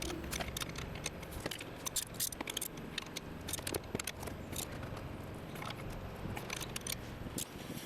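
Scattered light clicks, clinks and scrapes of metal tools and brake parts being handled during reassembly.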